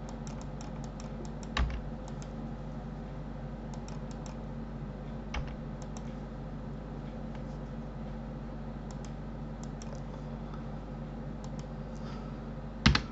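Light clicks of a computer mouse and keyboard at a desk, scattered irregularly, with three louder knocks, the loudest near the end, over a steady low hum.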